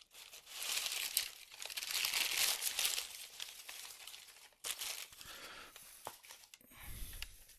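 Packaging being unwrapped by hand: crinkling and tearing, busiest over the first three seconds, then quieter rustling and handling.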